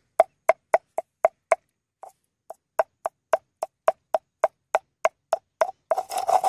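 Knife chopping on a small cutting board in steady strokes about four a second, pausing briefly about two seconds in, then breaking into a quick run of faster chops near the end.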